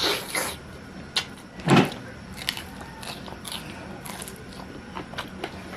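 Close-up biting and chewing of roasted chicken: scattered crunches and mouth smacks, the loudest a little under two seconds in.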